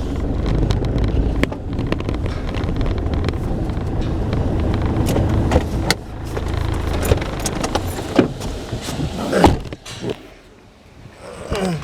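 A steady low motor rumble with scattered clicks and knocks over it; it drops away about ten seconds in.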